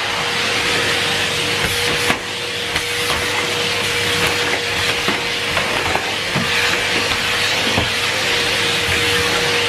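Numatic Henry Pet cylinder vacuum cleaner running steadily: rushing airflow with a constant motor whine, and a few light knocks, the clearest about two seconds in.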